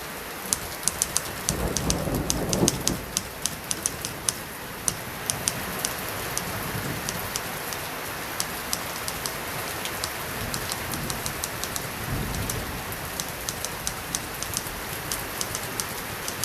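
Steady light rain with typewriter keys clicking over it at an uneven pace. A low rumble comes in briefly about two seconds in.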